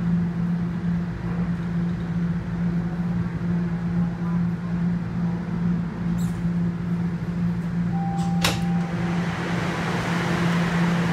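Steady electric hum of a Toronto subway train stopped at a station platform. About eight and a half seconds in there is a sharp click with a brief tone, and near the end a rushing train noise swells up.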